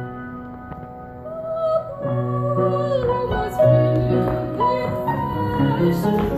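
Piano playing sustained chords, then a woman's voice starts singing about a second in, with piano accompaniment.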